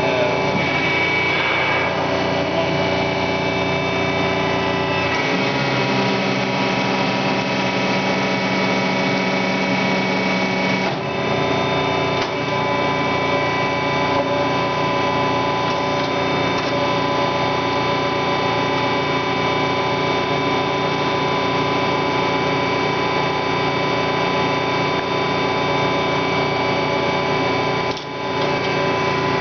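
A Marvel 81A9 vertical band saw with a 10 HP motor running steadily, its motor and blade drive giving a mechanical hum of several fixed tones. The low part of the hum changes for several seconds from about five seconds in, then settles back.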